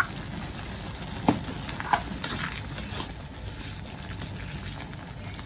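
A spatula stirring cassava shoots simmering in broth in a wok, over a steady hiss of the hot pan. A few sharp knocks come as the spatula strikes the wok, the loudest just over a second in.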